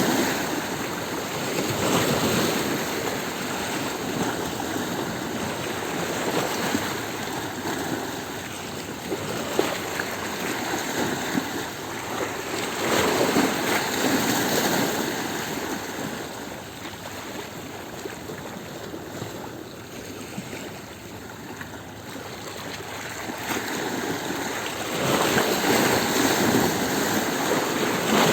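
Sea waves surging onto a stony shore, the surf swelling and falling back every several seconds, with louder surges near the start, about halfway through and near the end.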